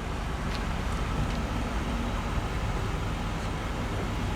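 Truck engine running steadily at low revs as the truck is backed up to line up with another transport truck's bed.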